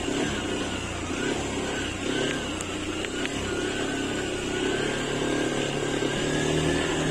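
Motorcycle engine running steadily while riding, with small rises and falls in pitch.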